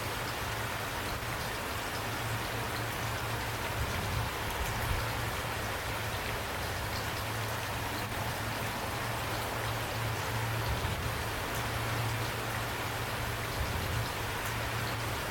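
Steady rain falling: a dense, even hiss with scattered drop ticks, over a low rumble.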